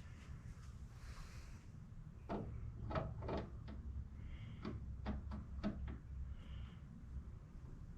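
Scattered light clicks and clinks of metal suspension hardware being handled and fitted by hand, bolts and spacers knocking against the parts, a few with a short metallic ring, mostly between about two and six seconds in.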